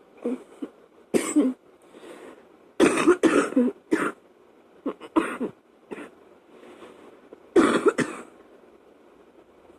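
A woman's wet, chesty coughing fit from a chest cold: a run of hard coughs, several bunched together about three seconds in and a last strong one near the end, over a faint steady fan.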